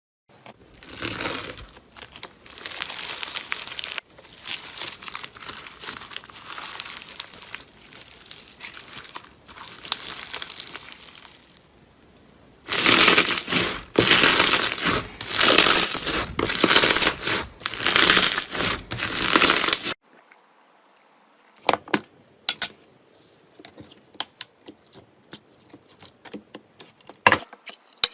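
Slime being squeezed and kneaded with a wet crackling, crinkling sound. The crackling comes in about seven louder squeezes roughly once a second through the middle, then thins to scattered small pops and clicks near the end.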